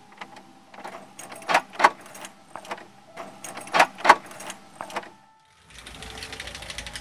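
A metal doorknob rattling and clicking as it is jiggled, with two louder bursts of rattling. Then a low rushing noise comes in near the end.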